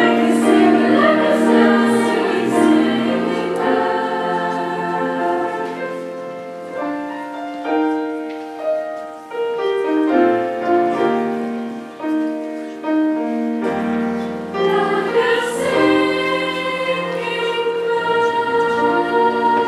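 School choir singing in several parts, with long held notes; the singing grows softer and more broken in the middle, then swells fuller again about two-thirds of the way through.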